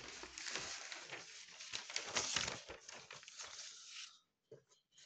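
Paper rustling and crinkling as notebook pages are handled and flipped over, stopping about four seconds in, followed by a few faint ticks.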